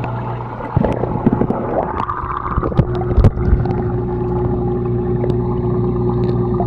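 Aquarium pump humming steadily, with air bubbling through the tank water. A few sharp knocks come between about one and three and a half seconds in.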